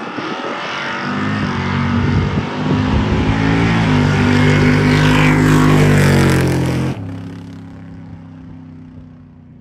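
Drag-racing vehicle's engine at full throttle on a pass down the strip, growing louder to a peak, then dropping off sharply about seven seconds in and fading away.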